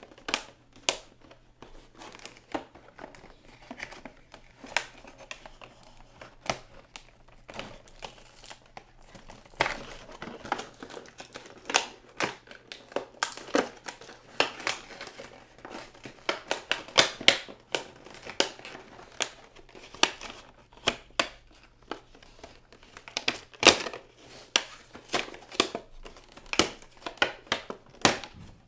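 An action figure's plastic and cardboard packaging being handled and torn open: irregular crinkling and crackling with sharp clicks, busier from about a third of the way in.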